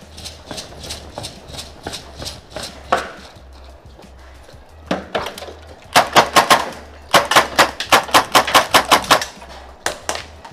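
Running footsteps, then a KT-101 (KG-9 replica) gas blowback airsoft pistol firing fast semi-automatic strings. A couple of shots come about five seconds in, then about six rapid shots, then a string of about a dozen at roughly six a second, with a few more near the end.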